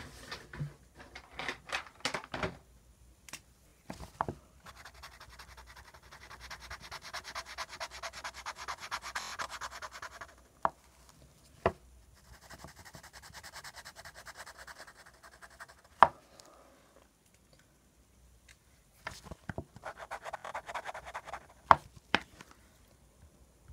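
Pen scribbling on paper with rapid back-and-forth strokes, colouring in, in three stretches. Several sharp taps fall between the stretches, the loudest of them being the loudest sounds here.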